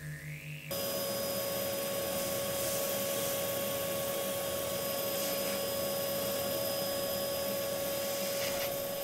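A pulsing low synthesizer tone with a rising glide cuts off under a second in. A small handheld vacuum cleaner then runs steadily, with an even rushing noise and a steady motor tone, sucking chia seeds off a speaker cone.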